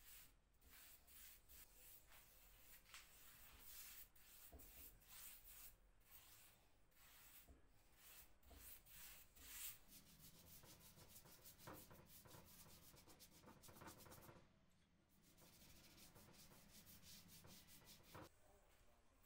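Faint, bristly swishing of a paintbrush stroking water-based stain onto a wooden board, stroke after stroke, the strokes coming quicker in the second half with a short pause a little past the middle.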